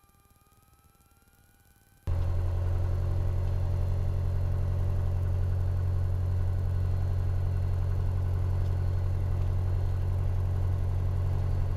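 Piper Warrior's four-cylinder piston engine and propeller heard from inside the cabin, droning steadily at a constant pitch. It cuts in abruptly about two seconds in, after a near-silent stretch with a few faint steady tones.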